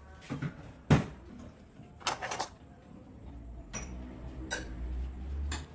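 Metal spoon and fork clinking and scraping against a ceramic plate: a handful of sharp taps, the loudest about a second in, with a low hum under the second half.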